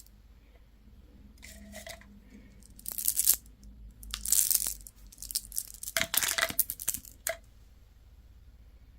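Candy wrapper being crinkled and torn open in several short, crackly bursts, the loudest about three and four seconds in, with a longer run of crackling around six to seven seconds.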